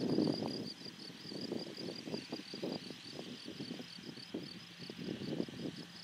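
An insect stridulating: a steady train of short high chirps, about four to five a second. Under it runs irregular low rustling, loudest at the very start.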